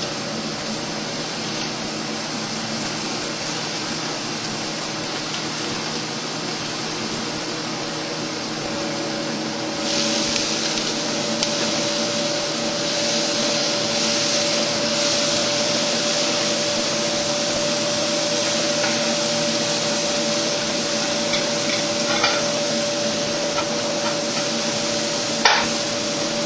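Steak sizzling on an indoor electric grill over a steady motor hum. The sizzle grows louder about ten seconds in, and there is a sharp click near the end.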